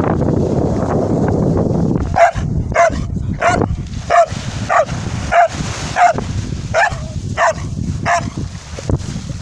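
Spanish water dog barking about ten times in a steady rhythm, roughly one bark every 0.6 seconds, starting about two seconds in. Before the barks, wind rumbles on the microphone.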